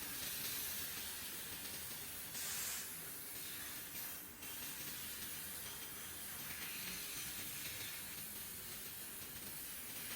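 CNC laser cutter working copper sheet: a steady hiss of assist gas from the cutting nozzle, louder and brighter for about half a second around two and a half seconds in and dipping briefly just after four seconds.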